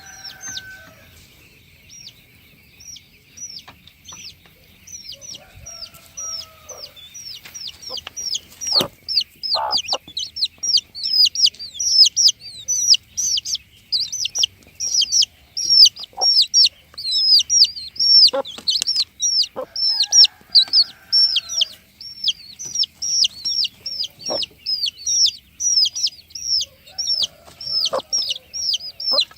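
Chickens clucking, with rapid, high chirping that grows denser and louder from about eight seconds in, and a few longer, lower fowl calls now and then.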